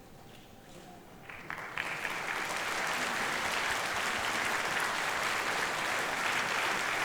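Audience applause: a few scattered claps at first, building within about a second into steady, sustained clapping.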